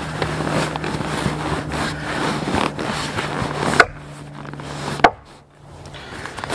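Nylon sleeping bag and stuff sack rustling and crinkling as they are pushed and stuffed into a canvas backpack. Dense handling noise for the first few seconds, with two sharp clicks about four and five seconds in, and quieter fabric handling after that.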